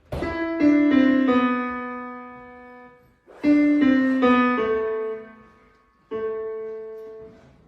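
Piano playing three short phrases. In each, a few notes are struck and left to ring and fade. The second phrase begins about three and a half seconds in and the third about six seconds in.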